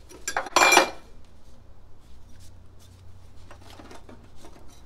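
A small sheet-metal patch panel clattering with a short metallic ring about half a second in, then light scrapes and taps as it is shaped and pressed against the car's inner fender.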